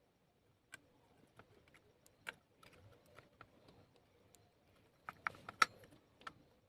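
Faint, scattered light clicks and taps of a 4440 amplifier IC's pins and the circuit board being handled as the chip is pushed into its holes, with a quick cluster of sharper clicks near the end.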